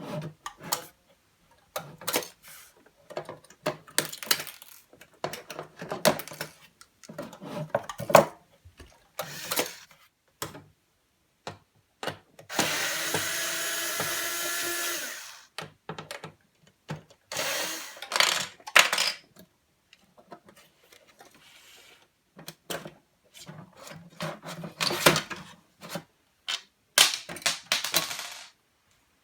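Hands unboxing a diecast model car: irregular scraping, rubbing and clicking of the packaging and model being handled. A steady whirr lasts about three seconds near the middle.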